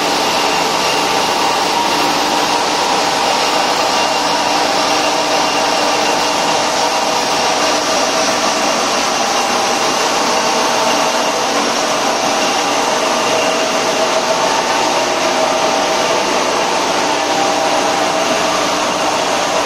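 HDPE plastic granule-making machinery running steadily: extruder and strand pelletizer giving an even, loud mechanical whir with a few constant whining tones in it.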